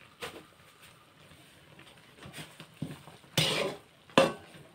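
A metal ladle knocking and scraping against an aluminium wok while ber fruit are stirred, in a few short clatters, the loudest about three and a half seconds in.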